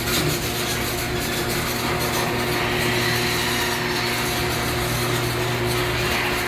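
Chamberlain garage door opener starting up on a remote command and running steadily, its motor humming and its drive moving the door. The sound starts suddenly and keeps going at an even level.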